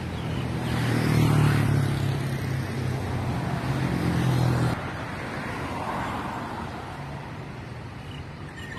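Street traffic: a motor vehicle's engine running close by, which cuts off suddenly a little under five seconds in, leaving fainter traffic noise.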